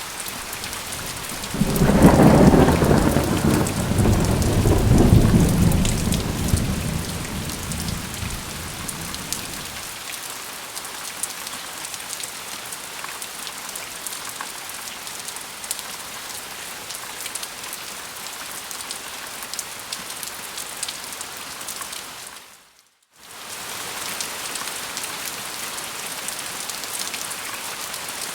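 Steady rain with a roll of thunder that starts about a second and a half in, swells twice and rumbles away over the next several seconds. Later the rain drops out for a moment and comes back.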